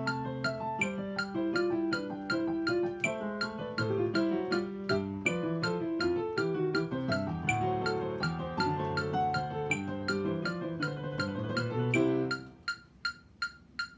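Digital piano playing a chordal arrangement over a steady ticking click, about four ticks a second with an accented tick every couple of seconds. The piano stops about twelve seconds in and the ticking carries on alone.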